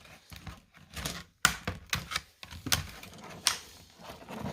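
Stiff plastic retail packaging being forced open by hand: irregular sharp clicks and snaps with rustling, the loudest cracks about one and a half, two and three quarters, and three and a half seconds in.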